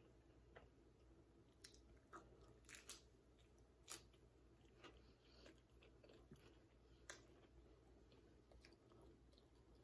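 Faint chewing of a chicken taco with coleslaw: soft, wet clicks and small crunches at irregular intervals, the sharpest a little under four seconds in.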